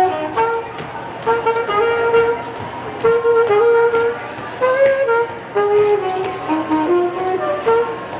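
A saxophone played solo, a quick melody of short, separate notes with a few longer held ones.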